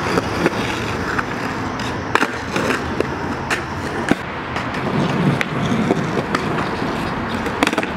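Skateboard wheels rolling with a steady rumble on a concrete sidewalk, with several sharp clacks of the board hitting the pavement.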